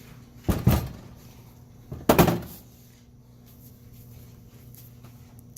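A hammer knocking a lubricated 95A durometer differential-mount bushing into the aluminium E36 differential cover: two heavy thuds about a second and a half apart.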